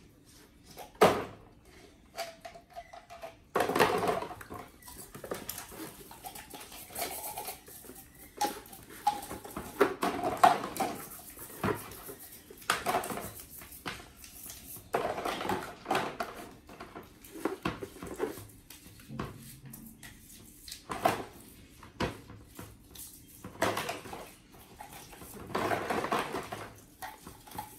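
Baby bottle being washed and handled, giving irregular clinks, knocks and rubbing sounds, mixed with scattered short squeaks from a baby monkey.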